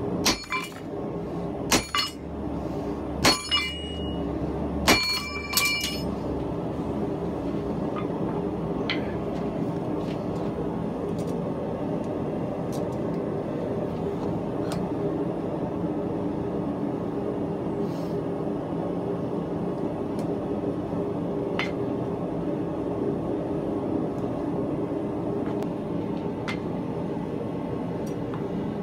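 Steel striking steel about nine times in the first six seconds, in quick pairs, each hit ringing briefly. Under it the forge runs with a steady hum.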